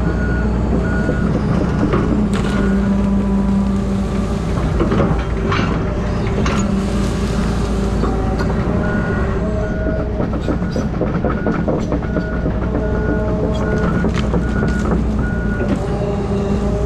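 Heavy equipment's engine running steadily under load, with a repeating high warning beep, clearest in the second half, and scattered knocks.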